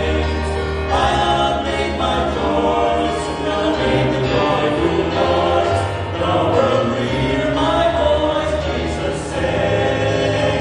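Male vocal group singing a gospel song through microphones, with musical accompaniment.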